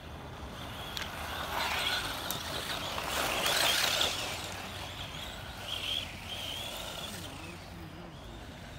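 Electric radio-controlled buggy running on a dirt track, its motor and drivetrain whirring. It grows louder to a peak about three and a half seconds in, then fades.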